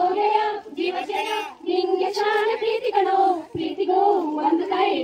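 A high voice singing a song with no instrument behind it, holding each note for about half a second to a second.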